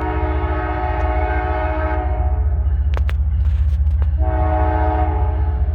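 Kansas City Southern GE ES44AC diesel locomotive's multi-chime air horn sounding for a grade crossing: a long chord that stops about two seconds in, then a second shorter blast about four seconds in. A heavy low rumble from the passing train runs under it, with a couple of sharp clicks about three seconds in.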